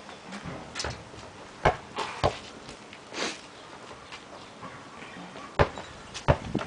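A basketball on an outdoor hoop and an asphalt driveway: a few sharp thuds as the ball hits the hoop and bounces on the pavement, with sneakers scuffing on the asphalt between them.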